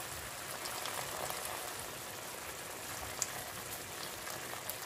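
Chicken livers and onions sizzling and crackling in a very hot frying pan as boiling water is poured in over them.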